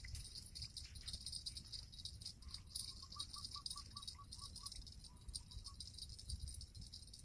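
Steady, high-pitched buzzing of an insect chorus over a low rumble. In the middle comes a short run of about ten quick chirps, then a few fainter ones.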